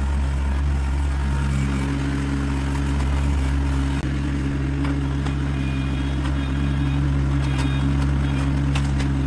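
Vehicle engine running steadily at an even speed, with a few faint light clicks or rattles over it.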